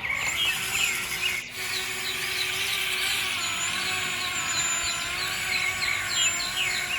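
A small electric motor running steadily with a faint whine, with short repeated chirps over it.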